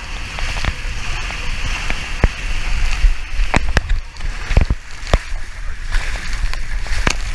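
Water rushing down a tube water slide under a rider, with a steady hiss of spray and a string of sharp knocks as the body and handheld camera bump the slide walls, picked up close on a GoPro.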